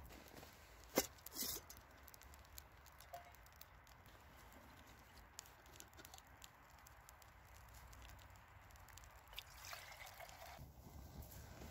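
Faint crackling and ticking of a Swedish fire torch, a split upright log burning from its centre, with one sharper crack about a second in.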